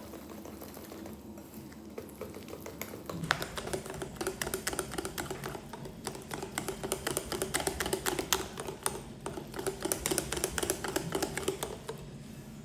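A kitchen utensil clicking and tapping quickly and irregularly against a mixing bowl while batter is mixed by hand, starting about three seconds in and stopping just before the end.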